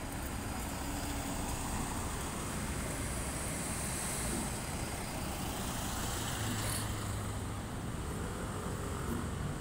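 A passenger van driving past on the street. Its engine and tyre noise swell to a peak about four seconds in, then fade.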